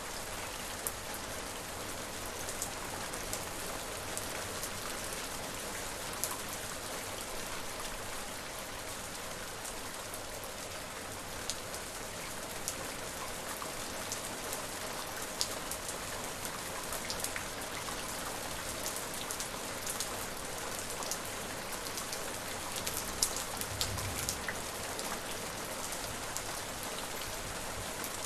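Steady rain falling, an even hiss with many distinct drops ticking and pattering on a surface. A brief low rumble comes near the end.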